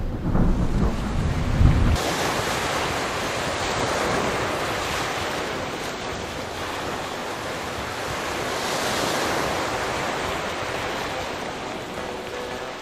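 Strong wind buffeting the microphone for about the first two seconds, then a steady rush of wind and choppy sea water churning along a moving ship.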